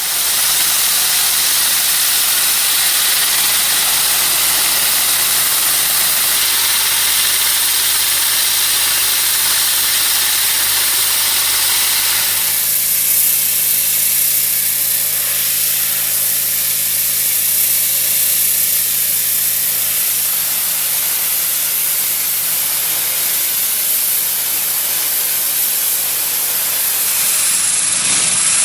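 Ultra-high-pressure water jet, a FALCH unit at 2500–3000 bar, blasting paint and rust off a steel shipping container: a loud, steady hiss of spray over the low hum of the pump unit. The sound changes character about twelve seconds in.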